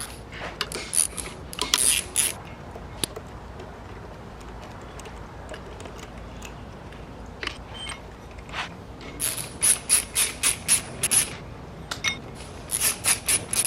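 Hand ratchet wrench clicking in quick runs of strokes: a few near the start, then longer runs from about nine seconds in. This is fasteners being worked off a BMW S50 engine during teardown.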